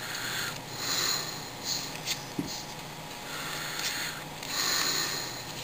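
2010 Topps baseball cards slid off one another by hand as a pack is thumbed through: soft papery swishes that come and go every second or so.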